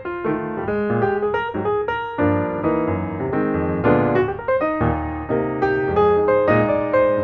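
Piano music playing a continuous run of notes.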